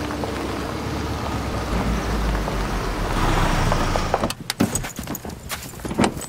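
Subaru SUV driving on a dirt track, a steady engine hum with tyre and road noise that grows louder about three seconds in. It stops suddenly a little after four seconds, and a run of sharp clicks and knocks follows, with one loud knock near the end.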